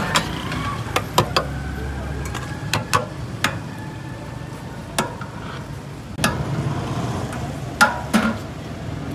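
Stainless-steel serving ware, pot lids, plates and bowls, clinking and clattering as food is dished out: about ten sharp clinks at uneven intervals, one of them leaving a faint metallic ring, over steady street noise.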